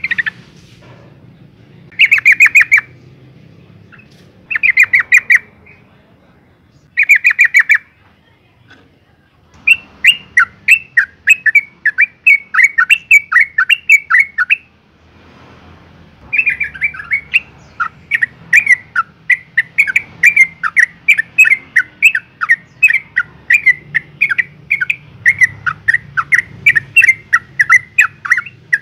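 Yellow-vented bulbul calling: three short harsh chattering bursts, then long runs of rapid repeated chirps, several a second, with a brief pause about halfway. It is a female's call to males when in breeding condition.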